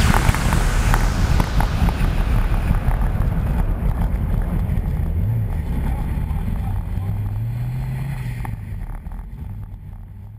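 Lancia Delta Integrale rally car driving, heard as a low engine rumble mixed with wind noise on the onboard microphone, fading out gradually toward the end.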